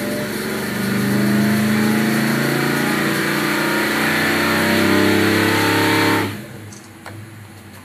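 Oldsmobile 455 big-block V8 on an engine dyno, pulling under load with its pitch climbing steadily from about 2,600 to over 4,000 rpm. About six seconds in the throttle is closed and the sound drops off sharply as the engine falls back toward idle.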